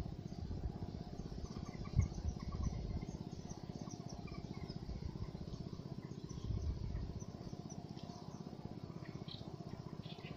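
Small birds chirping in short, scattered calls over a steady low rumble, with one soft thump about two seconds in.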